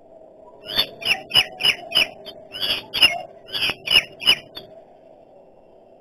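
Common myna giving a rapid run of about a dozen short, sharp calls, roughly three a second, which stops about a second and a half before the end.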